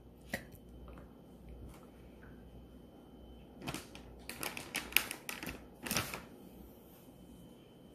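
Chopsticks clicking and tapping against a ceramic bowl while stirring ramen noodles: a few scattered clicks, then a quick run of clicks between about four and five seconds in and one more a second later.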